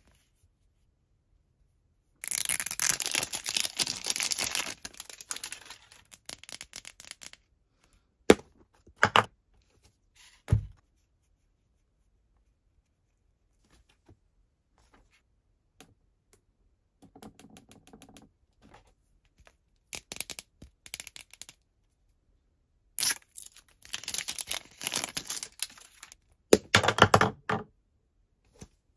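Plastic wrap crinkling and tearing as it is peeled off a hard plastic mystery-egg capsule, with a few sharp clicks from the plastic shell in between. A second long stretch of crinkling and rustling comes near the end, as the plush toy is handled in its opened plastic egg.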